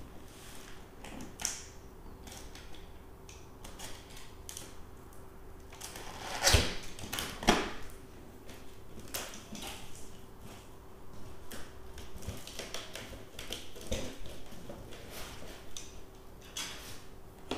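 A utility knife cutting through packing tape on a cardboard box, with scattered scraping and clicking from handling the box and two louder knocks a little before the middle. The cardboard flaps are pulled open near the end.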